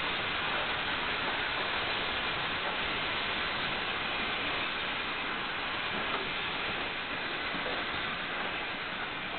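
Steady hiss of steam from an Alco-built 2-10-0 steam locomotive as it brings its train into a station.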